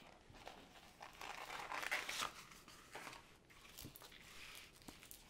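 Plastic-film-covered diamond painting canvas crinkling and rustling as it is unrolled off its tube and smoothed flat by hand, loudest in the middle, with a few light clicks.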